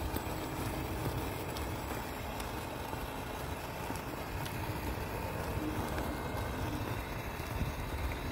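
Small electric RC crawler trucks driving on asphalt, their motors and gearing whining faintly under a steady low rumble, with a few light clicks.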